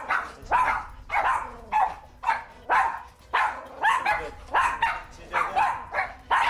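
Shetland sheepdog barking rapidly and without let-up, short sharp barks about two to three a second. Barking that the trainer takes for fear-driven barking.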